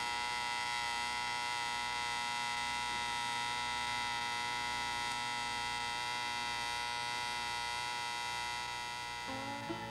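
Electric alarm clock buzzer sounding one continuous, steady buzz. It drops away near the end as acoustic guitar music comes in.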